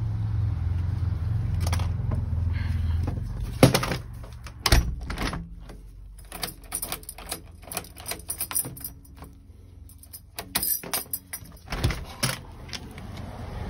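Front door being shut with a couple of loud knocks, then its handle worked and key turned, the newly fitted Yale multipoint lock mechanism clicking and clacking as it throws and withdraws, with keys jangling in the cylinder. A low steady rumble runs under the first few seconds.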